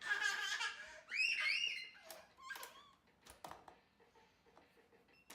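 A young child's high-pitched squeals, rising and falling in pitch over the first two seconds, then a few light clicks and knocks.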